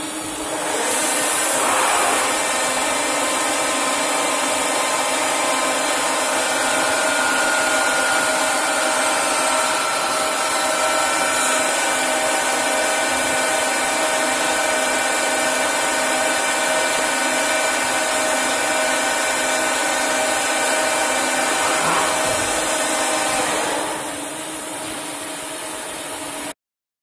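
CNC lathe running as it machines a metal velocity stack trumpet: a steady mechanical drone with several held whining tones. It grows louder about a second in, eases off near the end, then cuts off suddenly.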